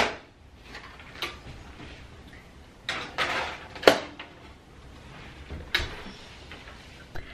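Metal baking tray scraping as it slides onto an oven rack, with sharp metallic clanks, then the oven door shutting with a clunk a couple of seconds later.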